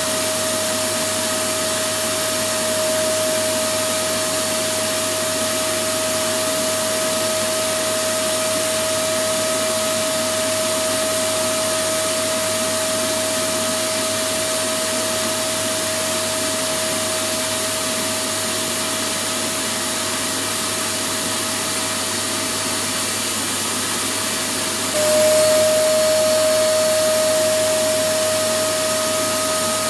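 Electric vacuum cleaner running continuously: a steady rush of air under a constant motor whine. About 25 seconds in, it jumps a little louder and the whine drops slightly in pitch.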